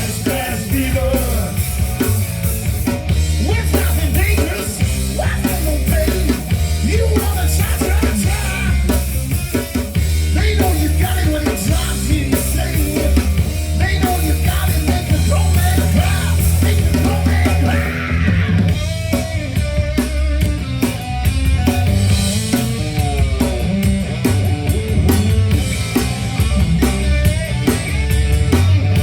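Live rock band playing a hard-rock number loudly, with drum kit and a heavy bass line under wavering lead lines, and no clear vocals.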